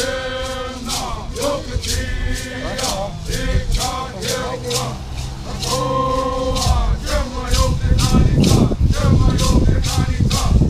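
A group of voices singing a traditional Cupeño song together, with a hand rattle shaken in a steady beat of about two to three shakes a second. A low rumble rises under the singing in the last few seconds.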